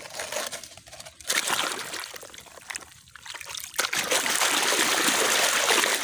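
Water splashing and sloshing as muddy plastic toy vehicles are scrubbed by hand in foamy water. About four seconds in, a louder, steady rush of water sets in.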